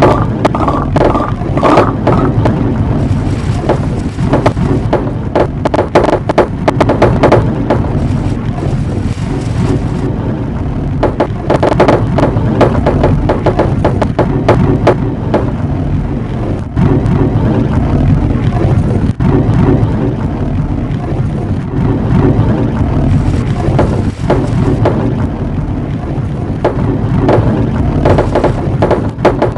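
Marbles rolling along the tracks of a long marble run: a steady rumble with many sharp clicks all through.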